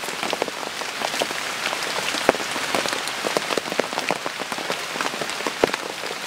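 Steady rain falling hard, with many separate drops striking close by; two drops land louder than the rest, about two and a quarter and five and a half seconds in.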